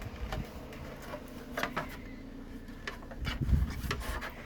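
Handling noise as the charger's white front cover is fitted back over the front: scattered light clicks and knocks, with heavier low rubbing and bumping in the last second or so.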